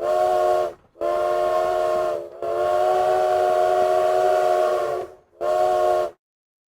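Steam locomotive whistle blown four times: a short blast, a longer one, a long held blast and a final short one. Each blast is a steady chord of several tones over a breathy hiss.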